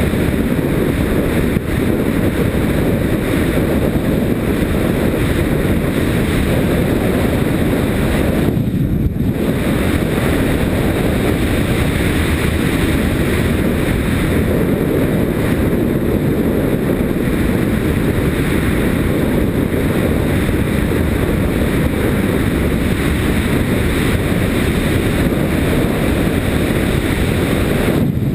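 Steady wind rush buffeting a helmet-mounted camera on a Yamaha Ténéré motorcycle riding a gravel track. The bike's engine and tyres make a low, even rumble underneath.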